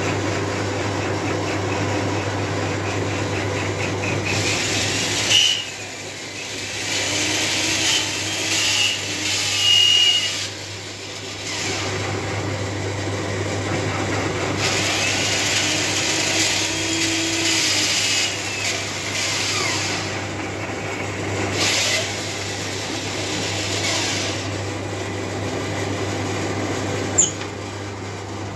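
Metal lathe running steadily as it turns a large steel shaft down to bearing size, with a constant low hum. Stretches of cutting noise come and go as the tool passes over the steel, with a few short, high squeals from the cut between about five and ten seconds in.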